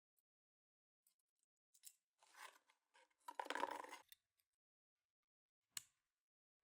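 Keyboard packaging being cut or opened by hand: a few short scraping, snipping sounds about two to four seconds in, then a single sharp click near the end.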